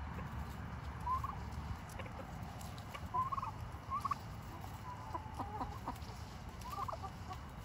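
Penned turkeys and chickens making short, soft clucking calls, about eight scattered through, over a low rumble that fades out in the first two seconds.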